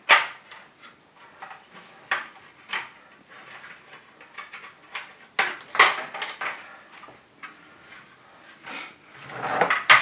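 Clatter and knocks of parts and tools being handled around an opened washing machine: short plastic and metal clunks with rustling, the loudest ones just after the start, around five and a half to six seconds in, and near the end.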